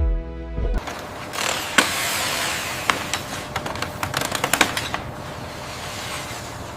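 Music cuts off under a second in, giving way to building-site noise: a steady hum of machinery with a run of sharp knocks and clicks through the middle.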